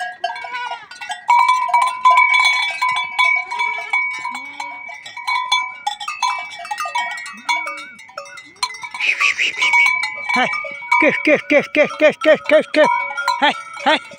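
Metal bells on a herd of goats clanking and ringing as the animals jostle in a pen, with goats bleating. Near the end comes a long, wavering bleat.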